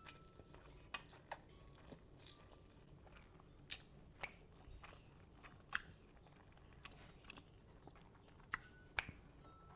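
Close-miked chewing of a big mouthful of food: quiet, with irregular sharp wet clicks and crunches from the mouth every half second to second or so.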